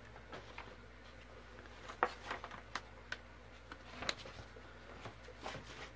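Faint scattered taps and rustles of paper and art supplies being handled on a wooden tabletop, the sharpest about two seconds in and again about four seconds in.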